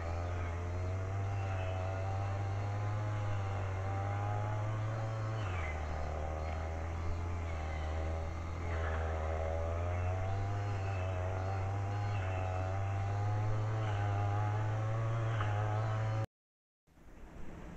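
A loud, steady low mechanical hum that drops a little in pitch about five and a half seconds in, with a few faint short high sounds above it.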